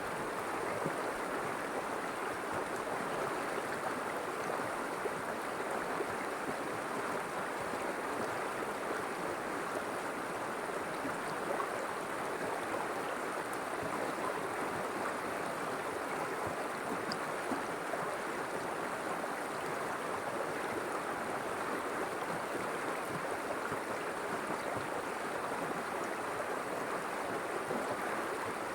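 River water flowing and splashing in a steady, even rush with no breaks.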